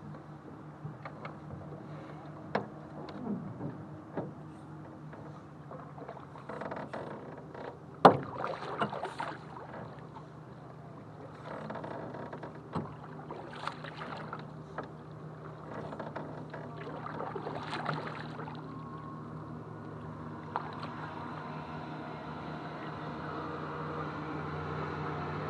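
Canoe paddle strokes swishing and splashing in calm water, a stroke every few seconds, with sharp knocks of the paddle against the canoe's aluminium frame, the loudest about a third of the way in. A steady low hum runs underneath.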